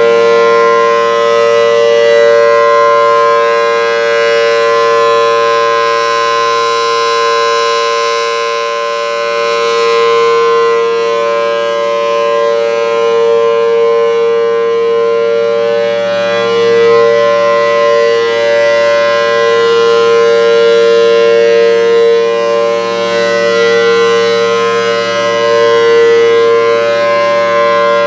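Federal Signal Thunderbolt 1000 tornado siren with 4/5 ports, sounding its Alert signal: a loud, steady two-note chord that swells and dips gently as the rotating head sweeps past.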